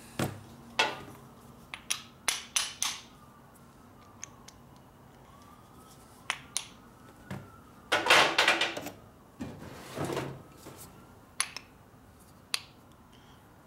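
Metal hand tools and parts clinking and clattering on a workbench: a dozen or so sharp metallic knocks at uneven intervals, with a longer clatter about eight seconds in and another around ten seconds.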